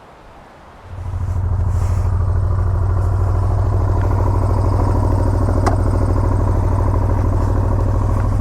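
Motorcycle engine starting about a second in, then idling steadily at an even pitch, with a couple of faint clicks.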